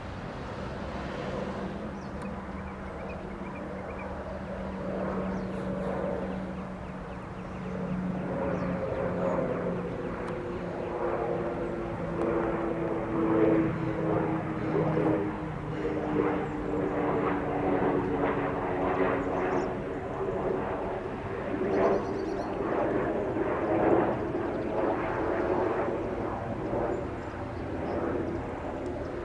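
Pilatus PC-12/45 single-engine turboprop on approach, its engine and propeller drone growing louder, with the pitch sliding slowly down in the middle.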